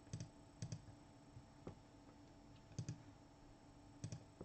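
Faint computer mouse clicks: four quick double clicks spread over a few seconds, plus one single click, over a low steady electrical hum.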